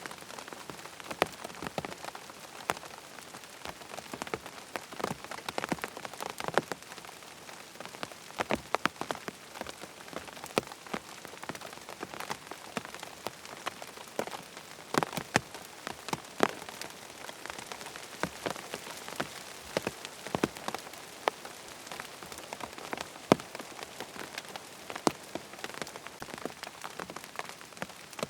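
Steady rain pattering on a tent, an even hiss with many separate louder drops hitting the fabric at irregular moments.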